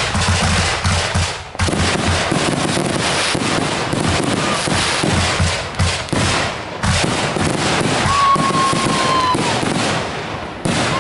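Consumer fireworks going off in a rapid, nearly continuous barrage of bangs and crackling, with a short whistle about eight seconds in.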